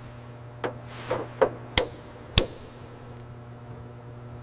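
Five sharp knocks in about two and a half seconds, unevenly spaced, then only a steady low hum.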